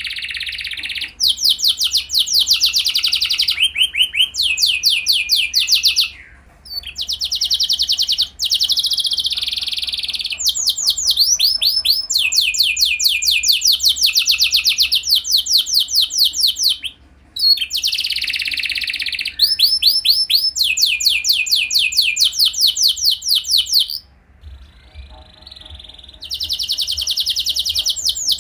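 Domestic canary singing: fast rolling trills of many repeated, down-sweeping notes, in phrases a few seconds long with short breaks between them.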